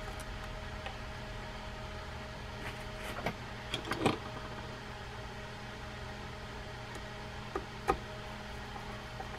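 A few light clicks and taps of small screws and a screwdriver being handled and set against a metal reel side plate: one about three seconds in, a short cluster around four seconds, and two more near the end. Under them runs a steady low hum.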